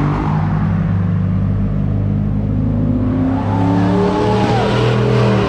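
Car engine accelerating hard past on the road: its pitch climbs for over a second, then drops sharply as the vehicle goes by near the end.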